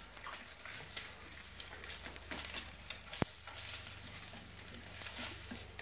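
Scrambled eggs sizzling faintly in a small frying pan while being stirred with wooden chopsticks, the sticks scraping against the pan, with one sharp click about three seconds in.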